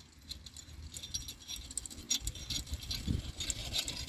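Hoofbeats of a pair of Friesian carriage horses on grass, with the jingle and rattle of their harness and carriage, growing steadily louder as the team approaches.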